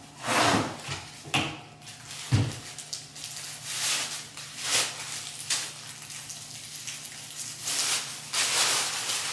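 Plastic grocery bags rustling and crinkling in irregular bursts as items are pulled out, with a single knock of something set down on a counter about two seconds in.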